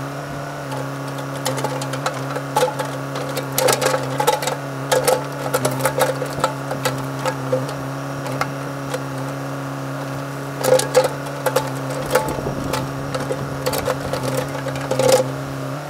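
Cat 432E backhoe loader's diesel engine running steadily as its backhoe digs frozen ground, with frequent knocks and clanks of the bucket and arm working the soil, in clusters about four to six seconds in, around eleven seconds and near the end.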